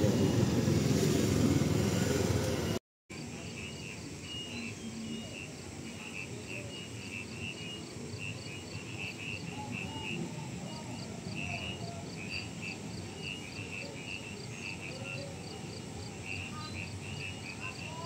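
Loud noisy vehicle-and-voices din that cuts off abruptly about three seconds in, followed by insects chirping in a steady pulsing rhythm over a low rumble.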